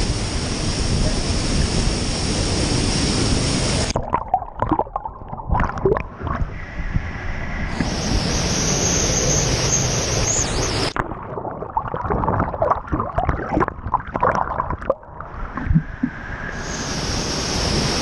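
Waterfall pouring into a turbulent canyon pool, a steady rushing of water heard close up at the water's surface. About four seconds in and again past the middle, the rush breaks up into choppy splashing with the hiss dulled, before the steady rush returns near the end.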